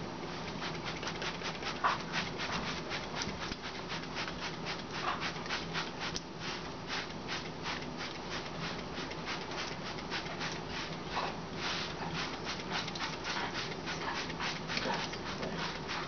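Hand trigger spray bottle squirted over and over in quick succession, several short hissing sprays a second.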